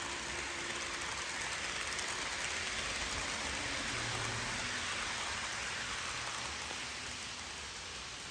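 HO scale model passenger train rolling past on track, a steady hiss of small metal wheels running on rails. The hiss fades near the end as the train moves away.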